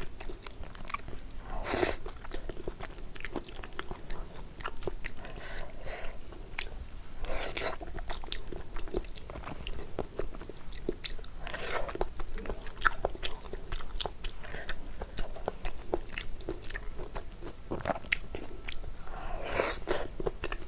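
Close-miked eating: steady chewing and biting with many small wet mouth clicks, and a few louder, longer noisy sounds spread through.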